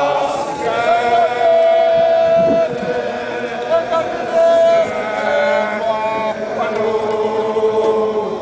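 A group of Zulu men chanting together, with long held notes.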